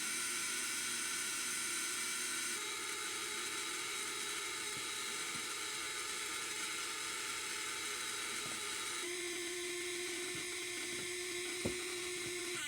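Electronic tone from a Chaney Electronics C4722 10-note sound synthesizer kit: a steady, buzzy tone full of overtones that shifts to a new setting about two and a half seconds in and again about nine seconds in. There are a couple of faint clicks near the end.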